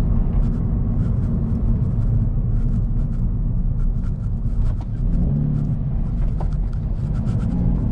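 Subaru BRZ's flat-four engine and Borla axle-back exhaust droning while driving, heard from inside the cabin, with steady road noise and light rattles over a bumpy road surface.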